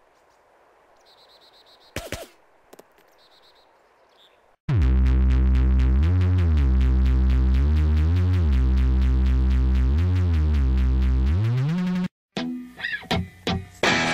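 Electronic intro music: after a quiet start with a single click, a loud synth bass comes in about five seconds in, sliding between notes under a fast pulsing beat. It breaks off about twelve seconds in and gives way to other music with separate hits.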